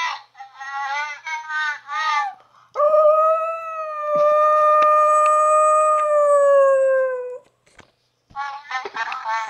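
Small white long-haired dog howling: a string of short wavering yowls, then one long steady howl of about four and a half seconds that sinks a little at its end, then more short yowls near the end.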